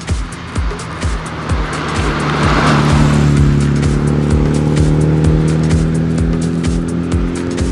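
Electronic music with a steady kick-drum beat at about two beats a second and held chords that swell in about two and a half seconds in, with a rush of noise at the same moment.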